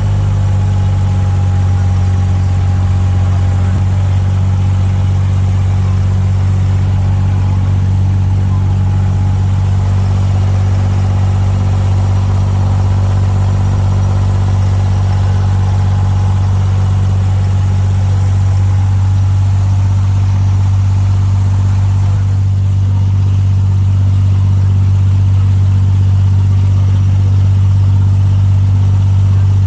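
Diesel engine of a traditional wooden abra water taxi running at a steady speed, a deep, even hum heard from on board.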